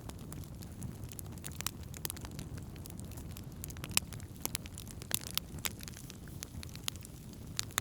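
Wood campfire burning: irregular sharp crackles and pops from the burning wood, several a second at times, over a steady low rumble.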